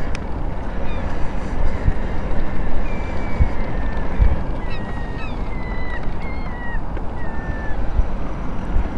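Wind rumbling on the microphone of a moving e-bike. From about three seconds in, a bird gives a string of short calls, each falling in pitch.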